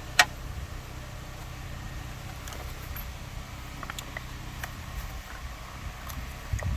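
A sharp metallic click about a quarter second in, then a few faint clicks from hand tools on a battery cable terminal, over a steady low hum of machinery.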